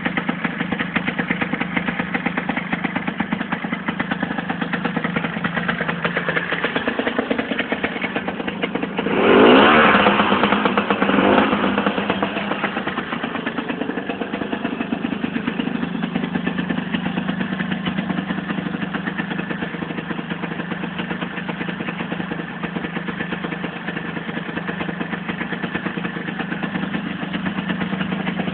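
Lambretta GP scooter's two-stroke single-cylinder engine idling with a fast, even beat. About nine seconds in it is revved up sharply, with a shorter second blip about two seconds later, then it settles back to idle.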